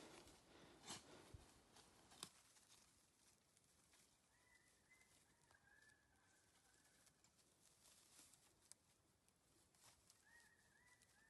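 Near silence with faint bird calls: a short series of stepped, falling notes, heard in the middle and again near the end. A few faint clicks in the first couple of seconds.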